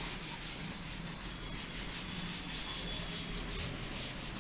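A chalkboard duster wiping chalk off a blackboard in quick, repeated back-and-forth strokes.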